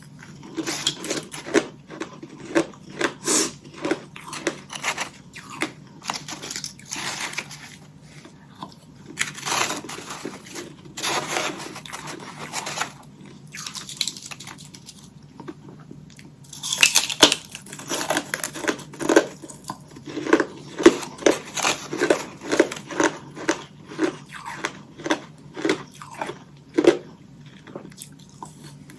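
Close-miked chewing of hollow ice sticks coated in freezer frost: runs of crisp crunches, several a second, broken by a few longer, crackling bites.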